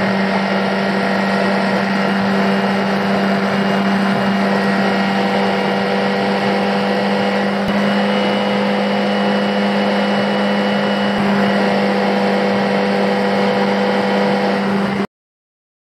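Suzuki DF90A four-stroke outboard running steadily at speed, a constant engine drone at fixed pitch, over the rush of water spray thrown off beside the hull. It cuts off suddenly near the end.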